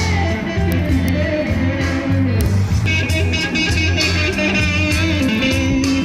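Background music with guitar, in a rock-and-roll or blues style, playing steadily.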